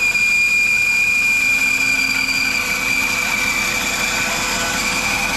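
Laguna 14-inch bandsaw running, a steady high-pitched whine over an even motor hum.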